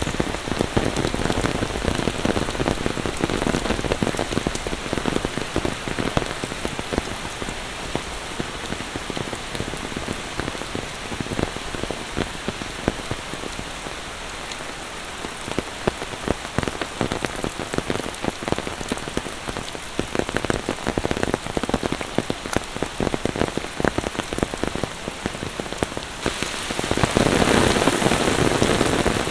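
Monsoon rain falling steadily, a dense patter of drops that turns louder and heavier for the last few seconds.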